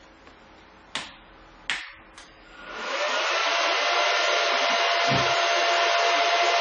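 Two sharp clicks, then the cooling fans of a Silver Fish 28MH Litecoin miner spin up over about half a second as it powers on, settling into a loud, steady rush of air with a faint steady whine.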